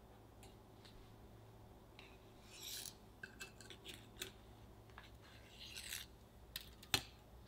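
Crisp rolled chocolate langue de chat cookies scraping against one another and tapping on a ceramic plate as they are stacked. Two short dry scrapes and several light clicks, the sharpest near the end.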